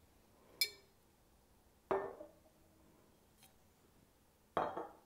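Glass bourbon bottles being set down on a kitchen countertop: a sharp glass clink about half a second in, a duller knock near two seconds, and another short knock near the end.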